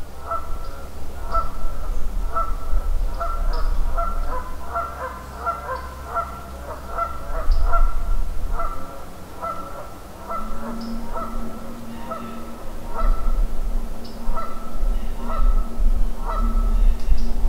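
A flock of geese honking: a quick stream of short calls that thins out in the second half, over a low, uneven rumble.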